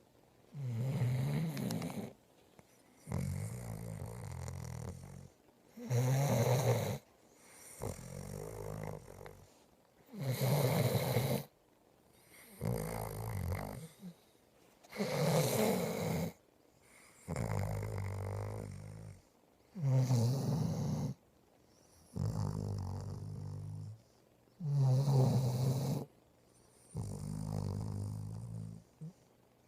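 Steady snoring in sleep. Each breath cycle is a short, loud snore followed by a longer, softer one, and the cycle repeats about every four to five seconds.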